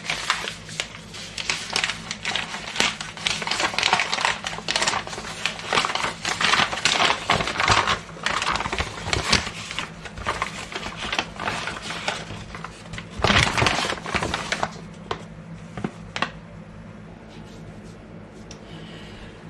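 Chuck roast being pressed and turned in a dry almond-meal and spice coating: a dense run of quick scratchy rustles and taps, with a louder burst about 13 seconds in, then it goes quiet for the last few seconds.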